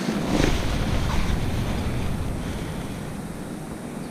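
Wind buffeting the microphone: a low, rumbling roar that is strongest in the first second or so and then eases off.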